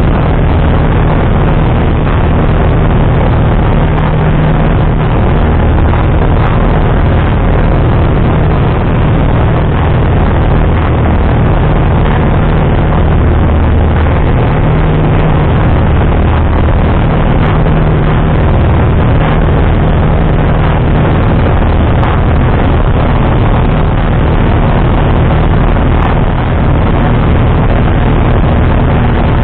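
Steady drone of a light single-engine piston aircraft's engine and propeller heard inside the cockpit in flight, a loud low hum that swells slightly now and then.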